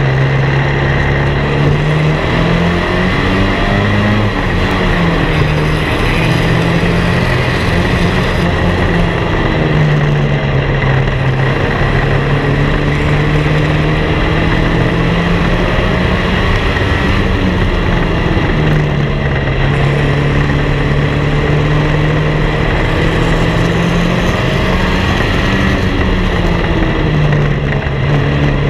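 Race car engine at full throttle, with other race cars running close behind; the engine note drops and climbs again several times as the driver lifts off and gets back on the throttle through the turns. A steady high whine runs over the engine.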